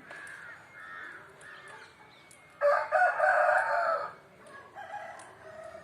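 A rooster crowing once, loud and drawn out for about a second and a half, starting midway, over softer chattering bird calls.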